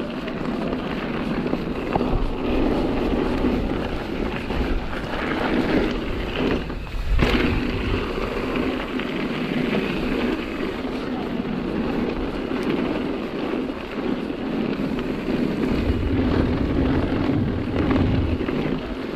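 Nukeproof Megawatt electric mountain bike rolling down a dirt and gravel trail: steady tyre noise and bike rattle with wind buffeting the microphone, and one hard knock about seven seconds in.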